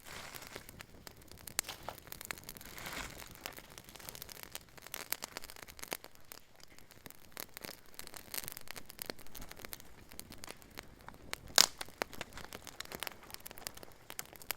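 Wood campfire crackling with scattered pops, and one sharp snap about two-thirds of the way through.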